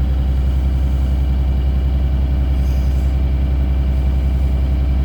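2009 Blue Bird Vision school bus engine idling steadily, with an even, fast low pulse.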